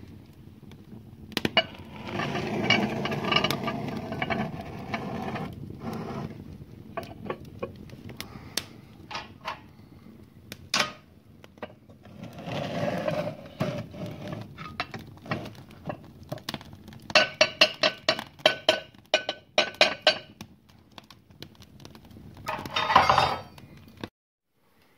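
Cast iron pot scraping over the oven floor and clinking as it is pushed in towards the fire, with a quick run of sharp metallic clinks about two-thirds of the way through.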